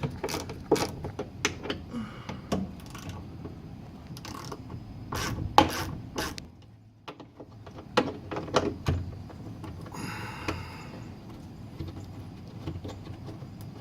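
Bolts of a van's side-door latch being loosened with a T27 Torx tool: irregular clicks and metal knocks, with a short stretch of quick rattling about ten seconds in.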